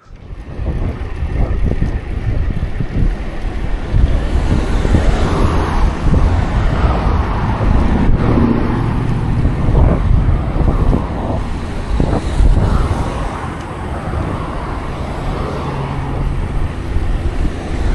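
Heavy wind noise buffeting the microphone, with a continuous low rumble beneath it.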